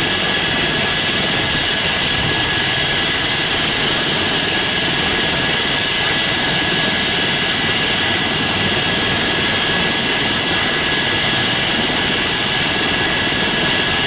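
Eurocopter EC135 twin-turbine helicopter running on the ground with its main rotor turning: a steady, high turbine whine over a loud, even rush of rotor and engine noise.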